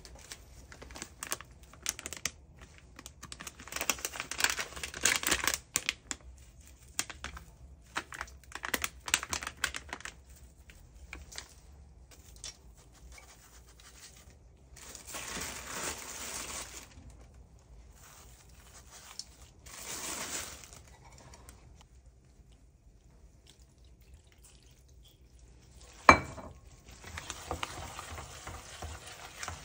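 Cooking sounds: irregular clatter and scraping, then two short spells of hiss. A sharp knock near the end is followed by steady sizzling as food fries in hot oil.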